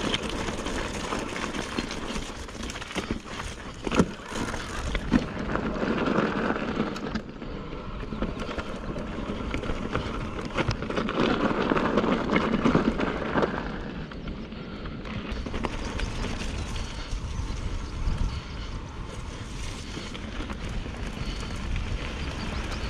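Mountain bike rolling down a rough, stony trail: tyres crunching over the ground with scattered sharp knocks from the bike, under a steady rumble of wind on the helmet camera's microphone. The tyre noise gets louder twice, for a couple of seconds each time.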